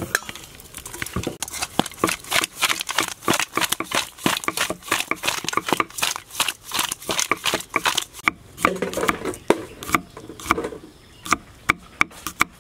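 Bat carcasses being tossed by hand with salt and seasoning in an aluminium bowl: a dense run of clicks and rattles. About two-thirds of the way in this gives way to separate sharp knocks of a cleaver chopping garlic on a wooden board.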